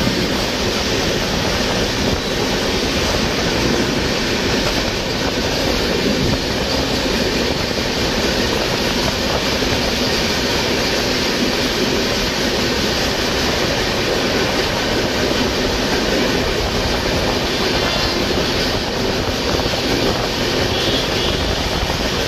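Indian express train running at speed, heard from on board: a loud, steady noise of wheels on rails and the coach moving.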